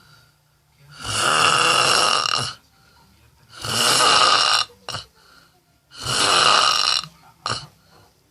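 A person snoring loudly: three long snores about two and a half seconds apart, each with quiet breathing pauses between. A brief sharp sound follows the second and third snores.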